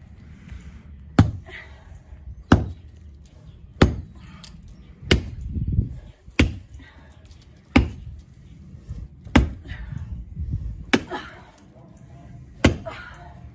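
Axe chopping into white mulberry roots buried in soil: nine sharp strikes, one every second and a half or so.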